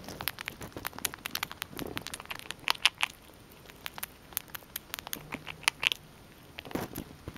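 Grey squirrel chewing and crunching a piece of food held in its paws, close to the microphone: quick, irregular crunching clicks.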